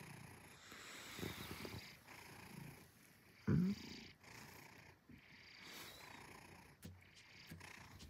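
Maine Coon cat purring quietly while being petted, with one brief, louder pitched sound about three and a half seconds in.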